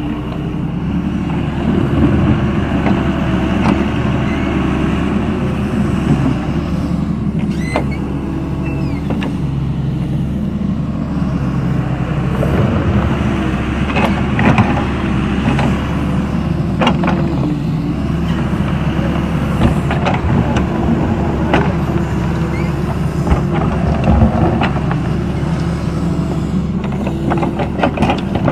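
Doosan D140W wheeled excavator's diesel engine running steadily under work, with scattered sharp clicks and knocks over it.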